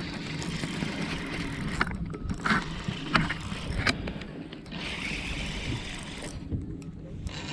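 A steady low rumble on a fishing boat, with several sharp knocks and clicks in the first few seconds and a brief stretch of hissing noise about five seconds in.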